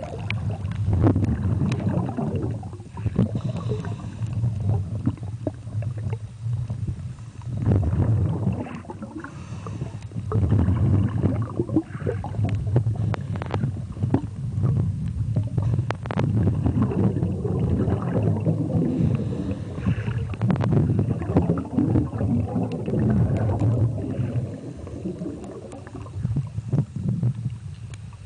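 Underwater recording: a low, uneven rumble of water moving around the submerged camera, with scattered clicks and knocks.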